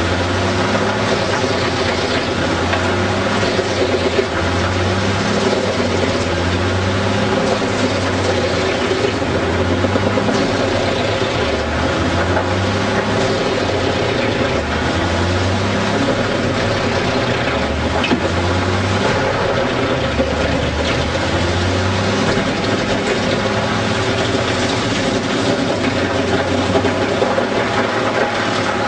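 Large crane-fed wood chipper running under load as its spiked feed roller draws a whole tree trunk into the chipper. The engine and chipping noise are loud and continuous, with the engine note dipping and recovering again and again as it bites into the wood.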